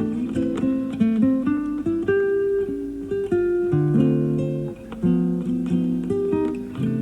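Solo classical guitar played fingerstyle: a plucked melody moving over sustained bass notes. It is heard through a home cassette recording of an FM radio broadcast.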